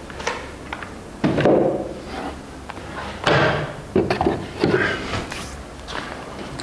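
Power tools being set back into wooden wall-mounted holders: a series of knocks and thuds of tool on wood, the heaviest about a second and a half in and again around three seconds in, with smaller taps after.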